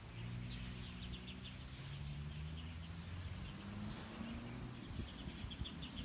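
Birds chirping in rapid little trains over the low hum of an engine, whose pitch rises about four seconds in.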